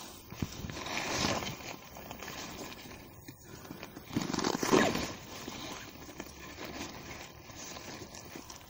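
Rustling of a polyester tent fly and handling of a tent peg as the vestibule is staked into grassy ground, with two louder swells of rustling about a second in and just before the middle, and scattered small clicks.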